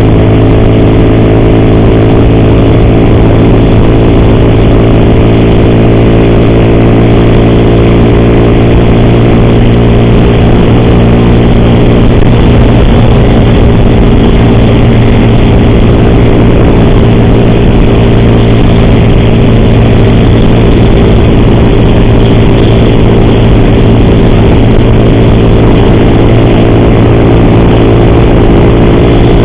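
Motorcycle engine running at a steady, unchanging speed while riding on the road. The rider reports an ugly noise from the cam chain (corrente de comando).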